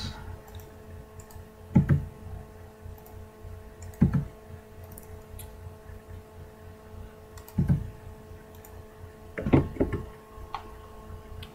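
Computer keyboard keystrokes and mouse clicks, a few dull knocks among faint sharper clicks, over a steady electrical hum from the recording setup.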